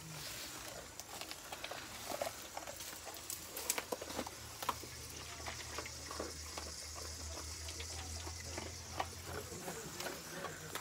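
A dog crunching dry kibble from a plastic bowl: irregular crisp clicks and crunches throughout.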